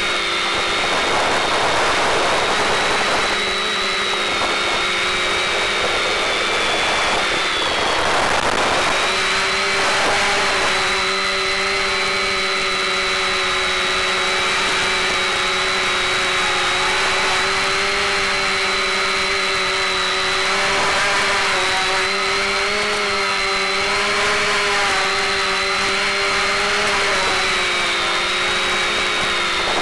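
SK450 quadcopter's electric motors and propellers whining in flight, several tones wavering in pitch as the throttle changes, with a brief dip and change about eight seconds in, over a constant hiss.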